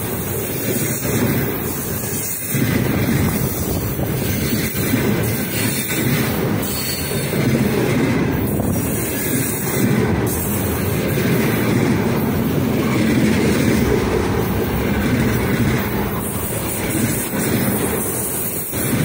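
Container flatcars of a long freight train rolling past at close range: a loud, steady rumble of steel wheels on rail with occasional clacks.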